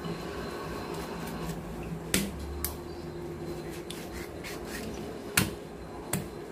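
Kitchen knife cutting raw chicken drumsticks on a plastic cutting board: quiet sawing and rubbing of the blade through the meat, with four sharp knocks of the blade on the board, the loudest about five and a half seconds in. The cook calls the knife rather dull. A low steady hum runs underneath.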